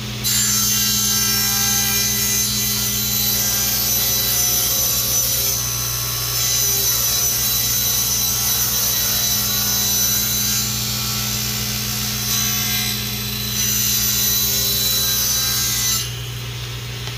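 Table saw ripping a long wooden strip along the fence: the cutting noise starts just after the start and stops about a second before the end, over the steady hum of the saw's running motor.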